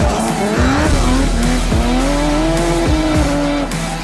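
Drift car engines revving, their pitch climbing and dropping, with tyres squealing through a slide, over background music.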